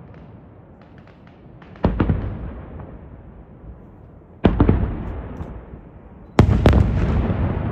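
Aerial firework shells bursting: three loud booms a couple of seconds apart, each trailing off in a rolling echo, the last one followed at once by a quick run of further reports. Faint crackling comes before the first boom.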